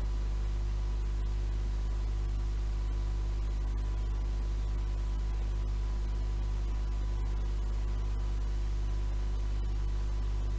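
Steady low hum with a ladder of evenly spaced overtones and a constant hiss, unchanging throughout: background hum and tape hiss from playback of an old 7-inch reel-to-reel tape.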